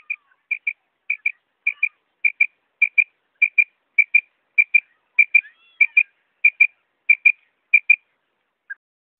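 Female common quail calling: a steady run of paired high notes, about one pair every 0.6 seconds, fourteen pairs in all, stopping about eight seconds in, with one faint lower note after.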